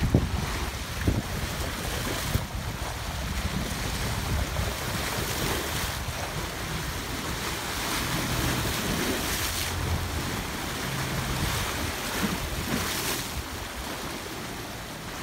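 Small waves washing against shoreline rocks, swelling in a hiss every three to four seconds, with wind buffeting the microphone.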